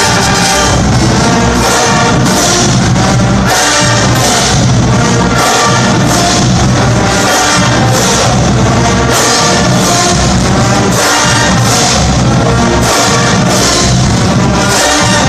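Marching band playing loud brass-heavy music, with sousaphones, trumpets, trombones and saxophones over a steady drum beat.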